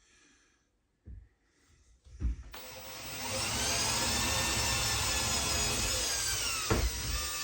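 A power drill drilling a handle hole through a cabinet door: after a couple of light knocks, the motor starts about two and a half seconds in, rising in pitch as it spins up. It runs steadily for about four seconds, its pitch sagging slightly near the end, then stops.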